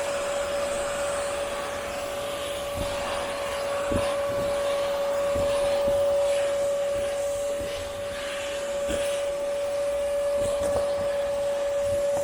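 Bagged vacuum cleaner running with a steady whine, sucking back up a dumped pile of pet hair and dry soil, with irregular knocks scattered through.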